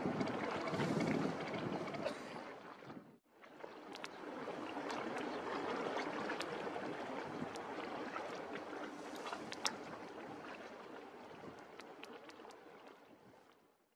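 Steady harbour noise with the low running of a small motorboat's engine, with a few sharp clicks. It drops out briefly about three seconds in and fades out at the end.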